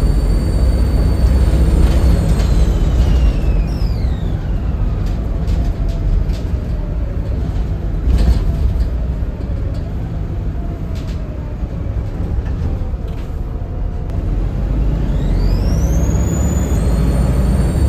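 Volvo B7RLE bus's 7-litre six-cylinder diesel engine running, with its turbocharger whistle over the rumble. The whistle holds high, falls away from about two to five seconds in, and rises again near the end. A few sharp clicks and rattles come in the middle.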